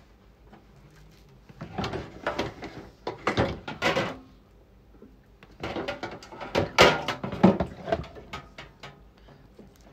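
Plastic wrap crinkling and rustling as it is handled, in two bursts of two to three seconds each, about two seconds in and about six seconds in.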